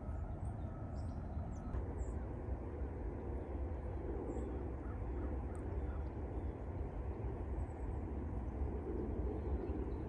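A steady low outdoor rumble with faint, high, thin bird calls scattered through it, typical of cedar waxwings.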